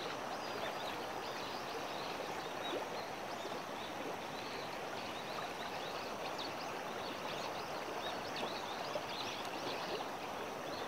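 Shallow river water flowing steadily over a rocky riffle: a constant rush with small trickling splashes.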